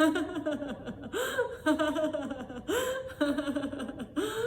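A woman laughing in laughter-yoga style, in repeated bouts about every second and a half. Each bout opens with a sharp gasping in-breath and a rising cry, then breaks into a quick run of ha-ha-ha's falling in pitch.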